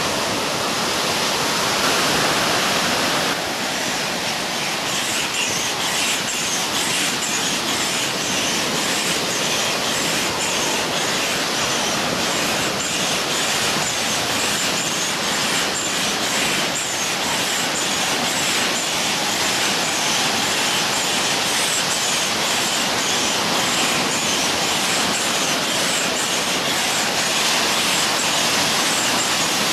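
Air pump running steadily, blowing air through a hose into a vinyl inflatable ride-on toy, over the wash of ocean surf. The sound turns higher and brighter about three seconds in.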